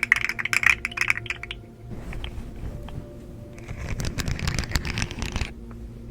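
Close-up handling sounds: rapid crackling clicks for about a second and a half, then softer, lower rustling and scraping.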